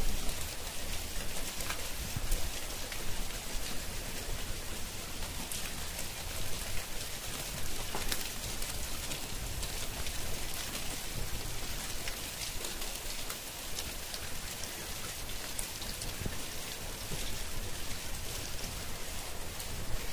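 Rain falling steadily: a dense, even hiss with scattered sharper ticks of single drops striking close by.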